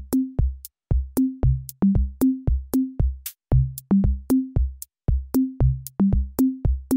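Electronic background music: a drum-machine beat of about three short pitched drum hits a second, with sharp clicks between them.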